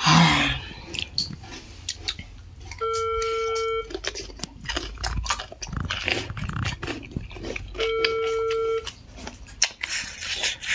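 A person chewing crisp raw cucumber, with many short crunches. A steady electronic beep about a second long sounds twice, about five seconds apart, and is the loudest thing heard.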